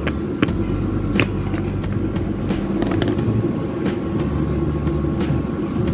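Sharp metallic clicks, about one a second, as steel spoke wire is worked with pliers and handled, over a steady low rumble.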